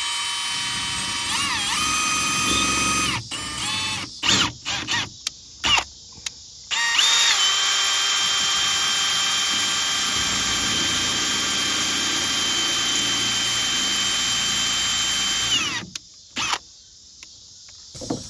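Power drill running: a steady whine for about three seconds with a brief dip in speed, then a few short trigger bursts, then a long steady run of about nine seconds that winds down as it stops, followed by two quick blips.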